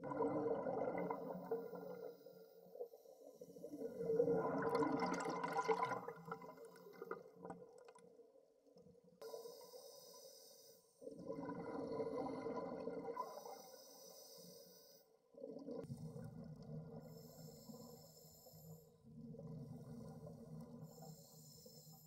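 Scuba diver breathing through a regulator underwater: bursts of exhaled bubbles every few seconds, alternating with a faint hiss as air is drawn in.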